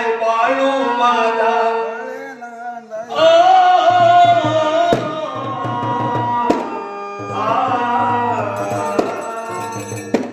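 An elderly man singing in long held notes with melodic turns, pausing briefly about three seconds in, with a rhythmic drum accompaniment joining about four seconds in.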